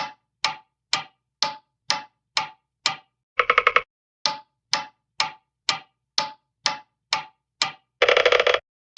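Hanna-Barbera cartoon sound effect of clock-like ticking, about two ticks a second, broken by a quick rattle of rapid ticks about three and a half seconds in and a longer rattle near the end.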